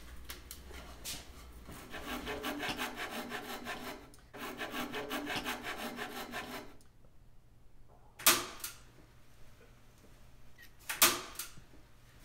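Woodworking shop sounds: a fast, even scraping on wood for about five seconds, with a short break in the middle, then two sharp bangs nearly three seconds apart.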